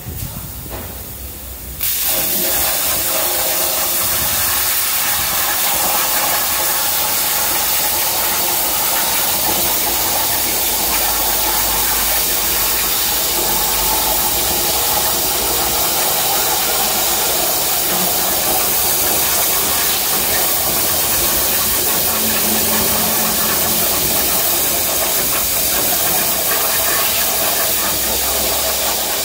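CNC plasma cutter's torch cutting steel plate: a quieter hiss, then about two seconds in a sudden jump to a loud, steady hissing rush as the cut starts, held evenly from then on.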